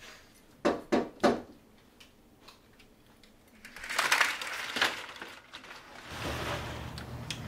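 Three quick, loud knocks on a door about a second in. A few seconds later comes a stretch of rustling and shuffling, and a low steady hum comes in near the end.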